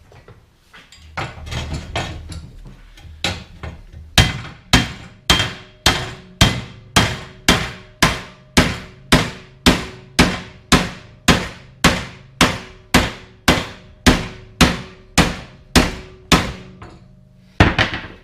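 Hammer blows on a steel tension arm bracket, straightening out a bend. A few lighter knocks come first, then a long, even run of hard, ringing strikes at about two a second, and one final blow near the end.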